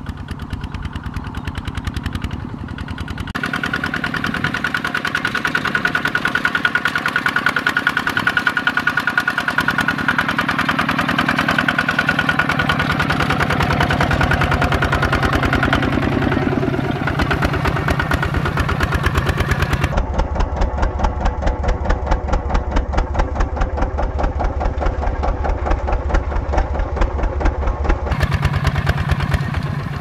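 Kubota RT140 walking tractor's single-cylinder diesel engine chugging steadily with rapid, even firing pulses as it pulls a plough through the soil. Its note and loudness shift abruptly a few times.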